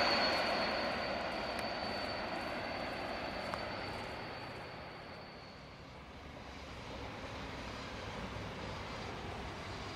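A passing train's running noise fades away, with a steady high whine that dies out about halfway. Then the low, steady rumble of an approaching Pendolino ED250 high-speed electric train rises in the distance.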